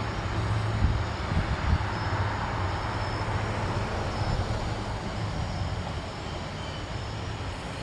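SEPTA Silverliner V electric train running past the grade crossing at speed, a steady rumble of wheels on rails with two sharp thumps in the first two seconds, slowly fading as the train moves away.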